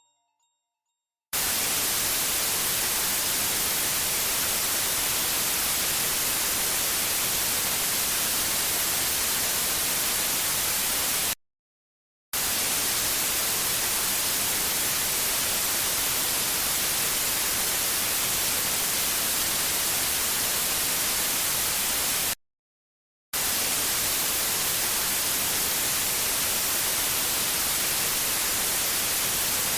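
Steady white noise hiss with no pitch or rhythm in it. It plays in three long stretches of about ten seconds each, cut by two short silences of about a second.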